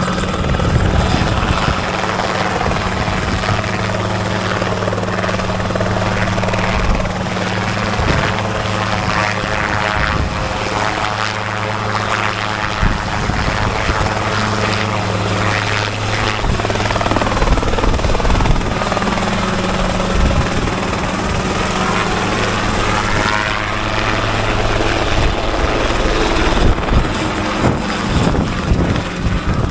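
Small light helicopter hovering low over the ground: the engine runs steadily under the rapid chop of the rotor blades. Around the middle, the pitch rises and falls as the helicopter moves about.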